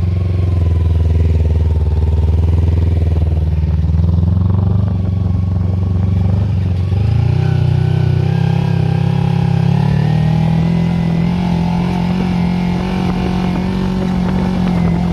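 Small engine of a home-built go-kart running steadily, its speed rising a little about halfway through and again a few seconds later.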